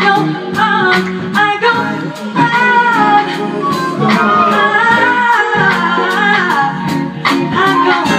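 Live soul band: a flute melody with singing over the band, and drums keeping a steady beat of about two hits a second.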